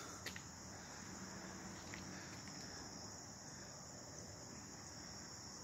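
Crickets chirping in a faint, steady, high-pitched trill that does not let up.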